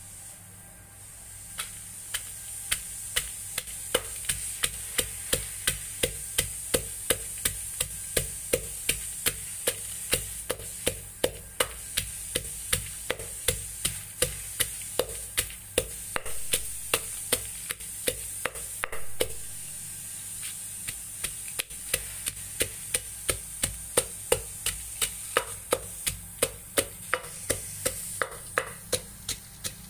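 Wooden pestle pounding chillies and garlic in a clay mortar for papaya salad, a steady beat of about two strokes a second, with a brief pause about two-thirds of the way through. A steady high hiss lies underneath.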